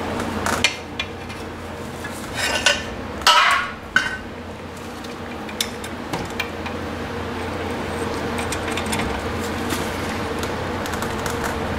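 Metal clanks and clinks as a breaker bar, socket and steel cheater pipe are handled and fitted onto a brake caliper bracket bolt. The clanks are loudest about three seconds in, with a few lighter ticks after, over a steady background hum.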